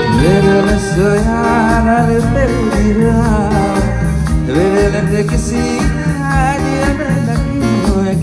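A male vocalist singing a melodic song live through a microphone and PA, backed by a band with violin and keyboards over a steady percussion beat.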